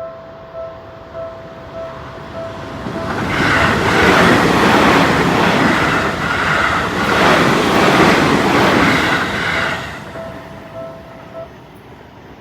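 A Seibu Shinjuku Line train passing over a level crossing, loudest from about three to ten seconds in. Throughout, the crossing's Seibu-style electronic warning bell rings steadily, about every 0.6 seconds, and stops about a second after the train has gone.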